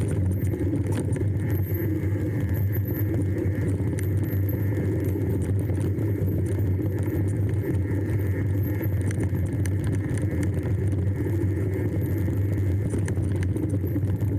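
Steady motor vehicle engine and road noise with light rattling.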